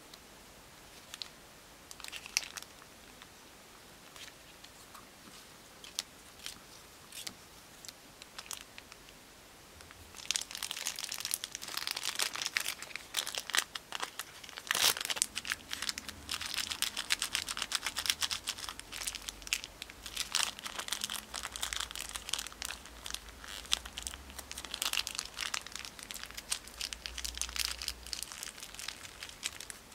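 A few scattered light clicks and scrapes of a wooden stick on a plastic sheet, then from about ten seconds in a long stretch of dense crinkling as a clear plastic zip bag with resin clay inside is squeezed and kneaded to work the paint into the clay.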